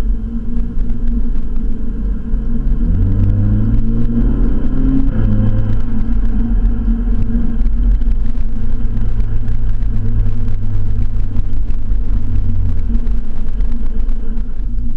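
Volkswagen Golf GTI Mk6's turbocharged four-cylinder engine through an aftermarket stainless steel catback exhaust. The revs climb for about two seconds, then a DSG upshift about five seconds in drops them with a brief blat, the 'DSG fart'. After that the engine runs steadily at lower revs.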